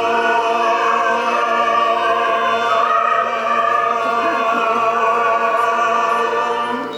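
Theatrical song ending on one long, held final note, sung operatically by a man over choir-like voices and musical accompaniment.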